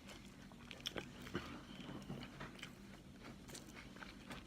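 Close-miked mouth sounds of a person chewing a sub sandwich with lip smacks: scattered wet clicks and smacks, two sharper ones at about a second and a second and a half in.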